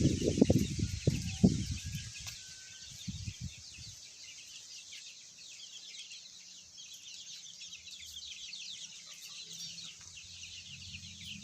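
Chickens clucking, loudest in the first two seconds and dying away by about four seconds in, over a steady, dense, high chirping chatter.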